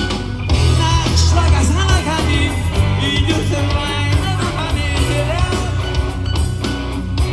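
Rock song playing: a singing voice carries the melody over a steady, loud bass line.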